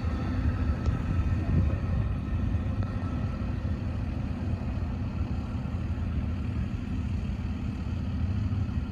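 Amtrak Silver Star passenger train rolling away, heard as a steady low rumble of its wheels on the track.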